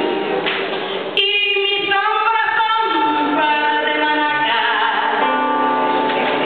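A singer singing a melody into a microphone over instrumental accompaniment, with a sharp click about a second in where the sound jumps.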